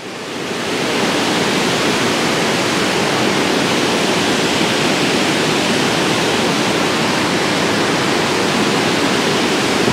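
Steady rush of water pouring over a dam spillway.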